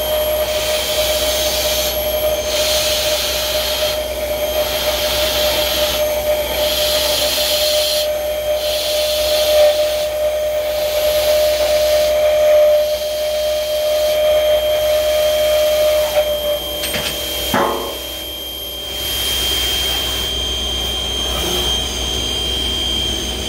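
CNC drilling machine's spindle milling a circular cut in steel plate with an end mill: a steady whine over a hissing cutting noise that swells and fades as the cutter works around the ring. About three quarters of the way through the cutting tone stops with a short sweep, and a steady high whine carries on.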